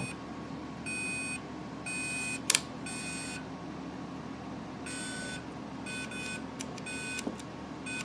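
Homemade HSL DAP-5 fire alarm control panel beeping as it factory-resets and reboots: a series of short electronic beeps, a few in the first three seconds and more from about five seconds on, as the panel comes back up into a trouble condition. A sharp click about two and a half seconds in is the loudest sound.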